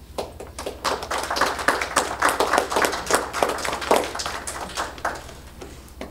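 Small audience applauding, individual claps distinct, building quickly and dying away about five seconds in.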